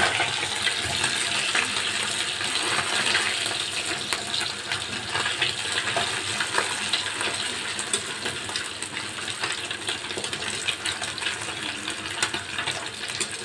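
Whole fish frying in hot oil in a kadai: a steady sizzle full of small crackles, easing a little toward the end, while a spatula turns and moves the fish in the pan.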